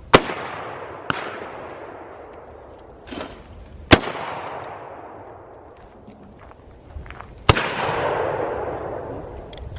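12-gauge shotguns fired three times, a few seconds apart: once right at the start, again about four seconds in, and again near 7.5 s. Each loud report has a long echo rolling away after it. A fainter crack comes about a second after the first shot.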